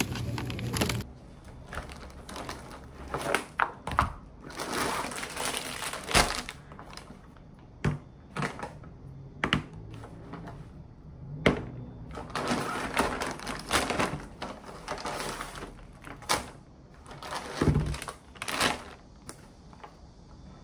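Objects being handled by hand: scattered sharp taps and knocks, stretches of rustling, and a dull thud near the end.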